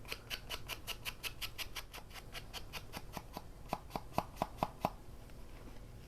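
Scissors snipping at paper in quick, even strokes, a run of short clicks about six a second, a few louder near the end, stopping about five seconds in.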